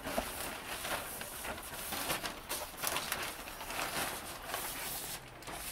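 A large plastic sheet being unfolded and shaken out, its plastic rustling with irregular crackles.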